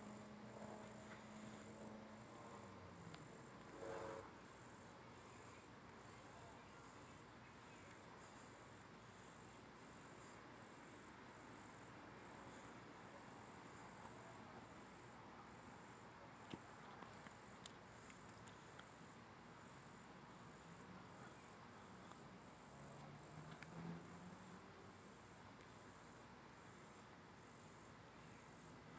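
Faint crickets chirping in a steady, even rhythm, about three high chirps every two seconds.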